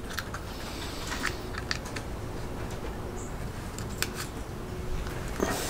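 Several light, sharp clicks scattered over a few seconds as a small plastic handheld electric skateboard remote is handled and turned over in the hands, over a steady background hiss.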